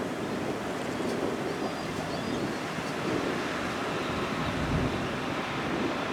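Wind buffeting the microphone outdoors, a steady rumbling rush with no clear engine tone.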